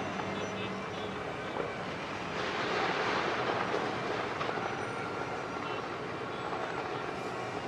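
Busy street ambience: steady traffic noise with faint horn-like tones over it, swelling louder for about two seconds in the middle as if a vehicle rushes past.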